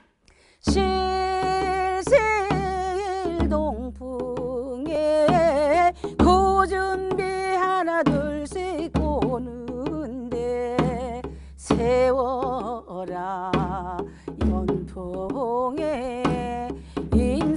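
A woman sings a Korean folk song solo in traditional style, starting about a second in. She holds long notes with a wide wavering vibrato, and a struck drum sounds every couple of seconds.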